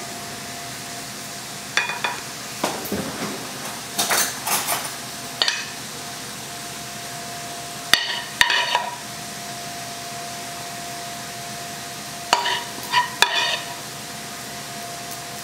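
A metal utensil scraping and knocking against a pan in several short bursts as caramelized red onions are spooned out onto naan, over a faint steady sizzle.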